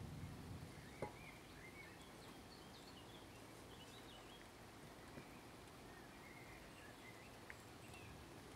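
Quiet spatula work on cooked cauliflower going into a glass dish, with one sharp tap about a second in and a couple of light clicks later. Faint small birds chirp in the background.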